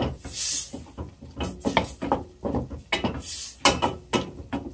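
Wooden spoon scraping and stirring diced chicken against the bottom of a stainless steel pot, in quick irregular strokes: deglazing the browned bits with white wine.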